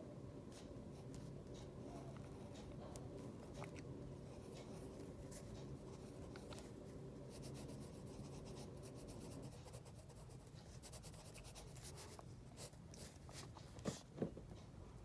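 Faint scratching of a drawing tool on paper as black outline details are drawn slowly, with a low steady hum underneath that fades about two-thirds of the way through. Two sharp clicks come close together near the end.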